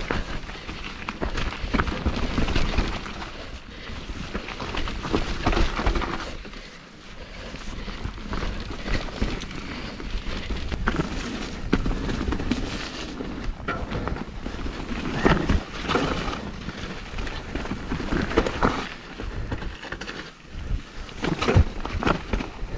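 Mountain bike ridden down a wet, muddy trail: tyres running through mud and over roots and the bike rattling over bumps, a continuous rush of noise broken by many sharp knocks, with wind rumbling on the microphone.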